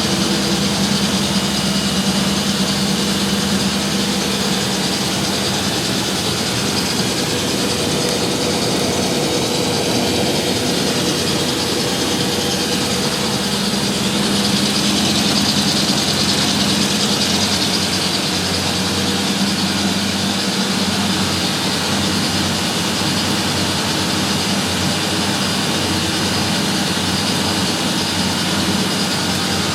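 Three washing machines, a Miele, a Euronova and a Sparmeister, spinning together with a loud, steady whirring hum. The Sparmeister's V-belt squeaks quite a bit.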